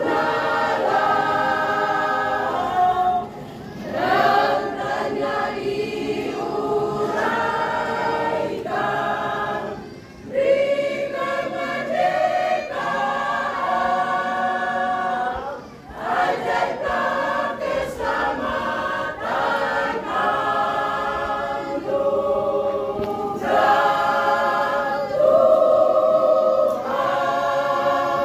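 Church choir of women's and men's voices singing in harmony, in long phrases with short breaks about every six seconds.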